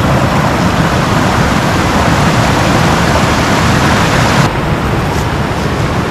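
Heavy rain pouring down as a loud, dense, steady hiss, which eases slightly and turns duller about four and a half seconds in.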